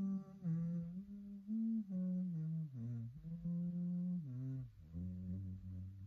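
A person humming a slow, wordless tune: long held notes that step up and down in pitch with short breaths between, sinking to a lower note near the end.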